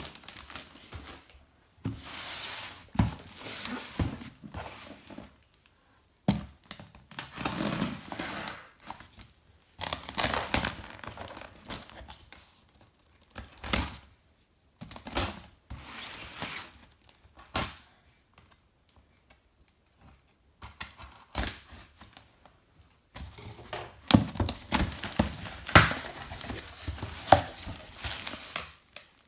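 Parcels being unwrapped by hand: brown wrapping paper and packing tape torn off, then a taped cardboard box pulled open, in irregular bursts of tearing and crinkling with sharp clicks and short pauses between. Bubble wrap crinkles near the end as the box is opened.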